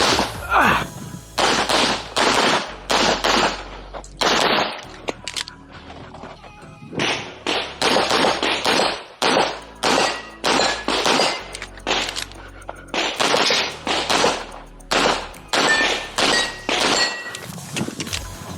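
Pistol fired in quick pairs and strings at a practical-shooting stage, with short pauses between strings while the shooter moves and reloads. Near the end a few hits ring on steel plates.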